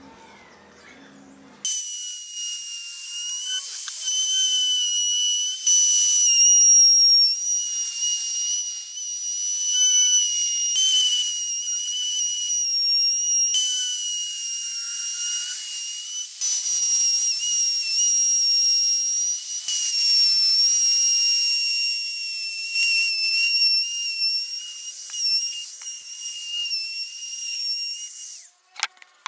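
Trim router with a roundover bit cutting along the edges of a wooden box: a steady high-pitched whine that wavers slightly as the bit cuts. It starts about two seconds in and stops just before the end.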